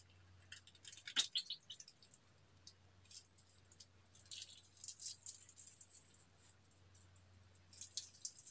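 Thin plastic piping bag crinkling and rustling as it is squeezed and handled, in short faint crackly bursts about a second in, around the middle and near the end.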